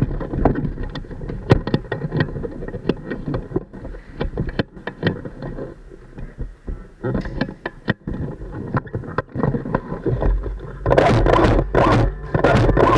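Airsoft gameplay: irregular sharp clicks and knocks over a low rumble, with a louder burst of dense noise near the end.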